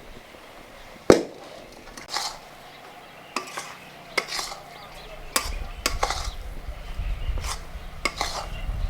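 Metal utensils clinking and scraping against cooking pots and dishes, in about eight separate knocks. A low rumble comes in a little past halfway.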